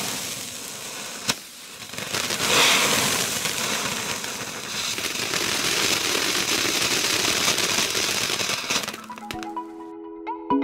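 Ground fountain firework spraying sparks with a steady hiss and crackle, with a sharp crack about a second in. Near the end it gives way abruptly to upbeat electronic background music with a bright plucked melody.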